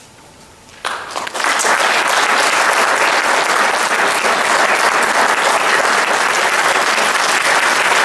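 Audience applauding: after a brief hush, a few scattered claps about a second in quickly swell into steady, dense applause.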